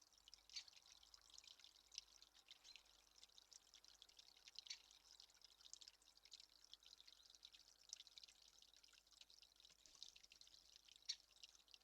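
Faint, continuous patter of small drips and trickling water, with one slightly louder drop near the end.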